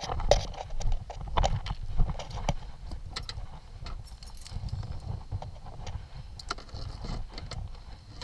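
Footsteps on grass, about two a second, followed by scattered clicks and knocks as the car's rear hatch and a foam-lidded cooler are handled.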